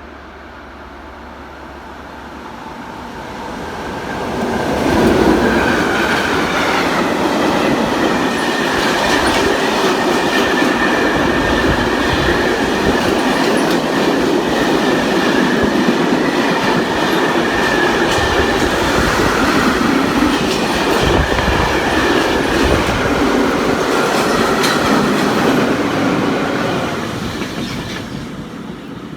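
A train passing close by: the noise builds over the first few seconds, runs loud and steady for about twenty seconds with wheels clattering on the rails, then fades near the end.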